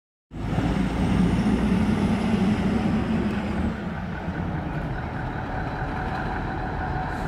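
Heavy truck engine running close by, loudest over the first three or four seconds and then easing off to a steadier, quieter road-vehicle rumble.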